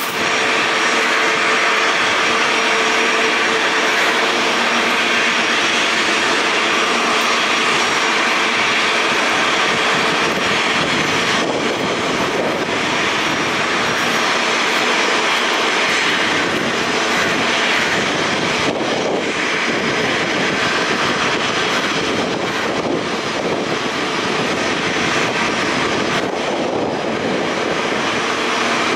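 Airbus A330 airliner's twin jet engines running at low taxi power as it taxis and turns: a steady, even rush of jet noise.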